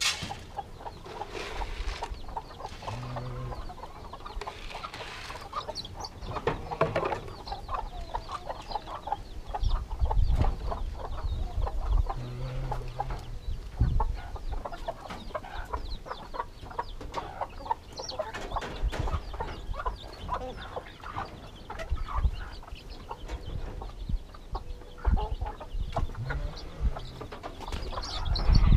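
Chickens clucking around their feed, amid many short clicks and rustles, with a few low thumps.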